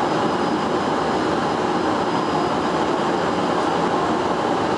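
Steady, even rushing noise on the flight deck of an Airbus A330 in flight on approach, from airflow and cabin air conditioning, with a faint high steady whine above it.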